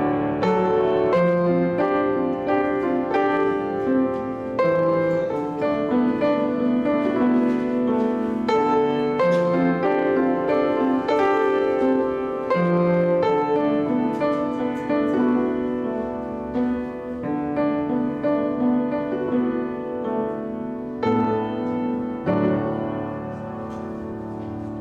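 Solo piano playing a slow, sustained piece, the notes ringing and overlapping and gradually fading near the end.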